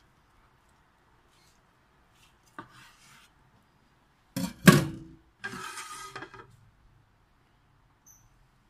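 A kitchen knife cutting through a boiled whole chicken. The blade knocks sharply on the cutting surface about four and a half seconds in, then scrapes along it for about a second.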